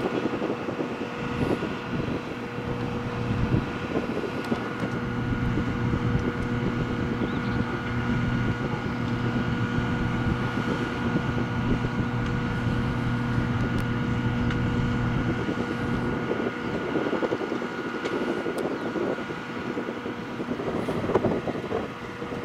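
Steady machinery hum on an airport apron beside a parked Boeing 737-800: a constant high whine throughout, with a lower engine drone that sets in about three seconds in and stops about sixteen seconds in. Wind noise on the microphone.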